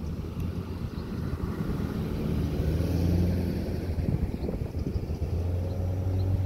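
Cars and SUVs passing slowly one after another close by: engine hum and tyre noise, swelling as each vehicle goes past, louder about halfway through and again near the end.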